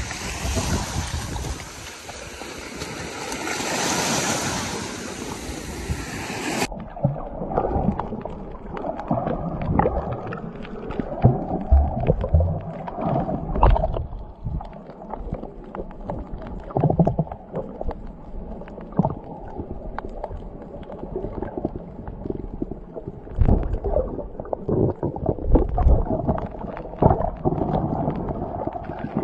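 Small waves washing onto a shallow beach, with wind on the microphone. About seven seconds in the sound turns suddenly muffled: water heard underwater, with bubbling, sloshing and irregular knocks.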